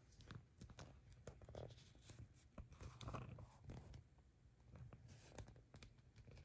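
Faint, irregular scratching and light tapping, a cat pawing at a toy or surface, with a busier cluster of scratches about three seconds in.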